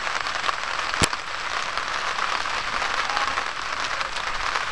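Steady rain falling, a dense hiss of drops, with a single sharp click about a second in.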